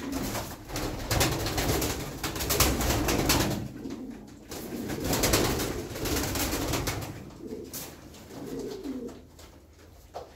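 Domestic tumbler pigeons in a small loft cooing, with several flurries of clattering wingbeats as the birds flap and scatter while one is caught by hand.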